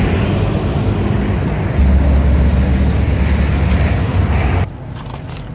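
A motor vehicle engine running steadily close by, a low hum under a broad rush of noise. About four and a half seconds in it drops away abruptly, leaving quieter outdoor noise with a few faint clicks.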